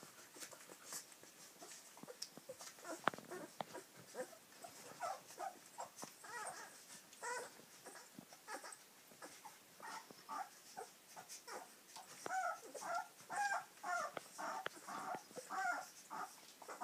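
Two-week-old rough-haired Dutch Shepherd puppies nursing, giving many short high squeaks and whimpers that come thicker in the second half. A single sharp click about three seconds in.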